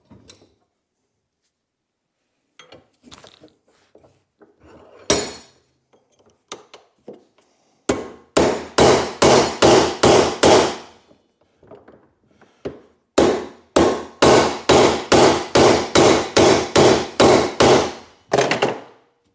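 Hammer blows on steel, driving a seized, bent pin out of a classic Volvo 142 door hinge. A single blow comes first, then two runs of quick blows at about three a second.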